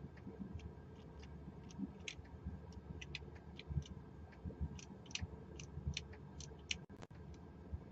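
Faint, irregular ticks of a Master Lock four-digit combination padlock's dials clicking round under the fingers, a few a second, over low handling rustle, as the combination is decoded by feel.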